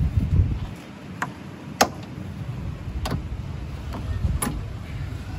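Sharp plastic clicks and snaps, about six spread over a few seconds, the loudest a little under two seconds in: the VW Polo 6R's rear roof trim being pulled off by hand, its V clips letting go.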